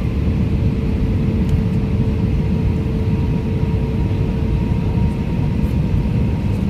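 Airbus A319 cabin noise from a seat behind the wing: the steady, loud rumble of its IAE V2524-A5 turbofan engines and the airflow. A steady hum runs over the rumble and stops near the end.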